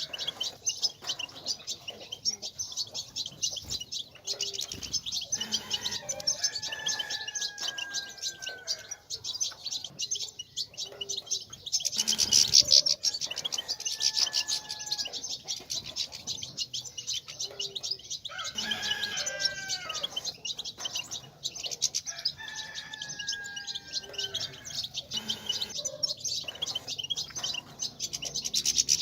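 European goldfinch twittering, a continuous rapid high-pitched chatter that grows loudest about twelve seconds in. Slower whistled notes, each falling slightly in pitch, come in now and then.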